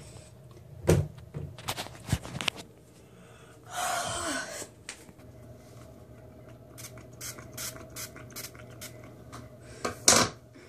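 Handling noise as a phone is moved and set down on a bathroom counter: a few sharp knocks and bumps, a short hiss about four seconds in, light clicks of small items being picked up, and a loud knock near the end.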